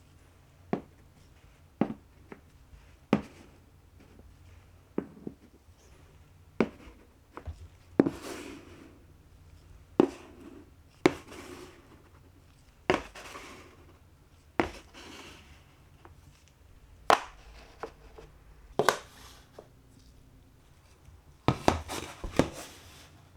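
Glass marbles running down a wooden marble-run course: sharp knocks every second or two as they drop onto and strike the wooden slopes, some followed by a rolling rumble along the track. Near the end comes a quick run of several knocks.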